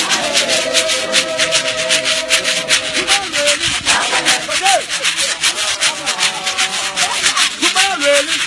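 A church choir singing long held notes over a fast, even beat of shaken or clapped hand percussion, with short sliding vocal calls about halfway through and near the end.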